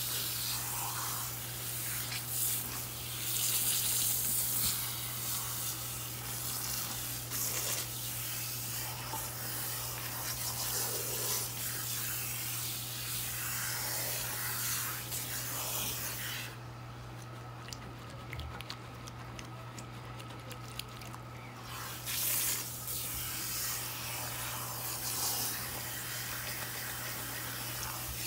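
Water spraying from a hand-held shampoo-bowl sprayer onto wet, lathered hair and splashing into the sink, with hands working through the hair. The high hiss of the spray drops away for about five seconds past the middle, then returns.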